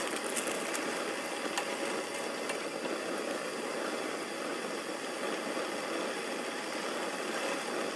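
Pot of ramyeon water boiling steadily on the stove, with a few light clicks in the first second as the noodle block goes in.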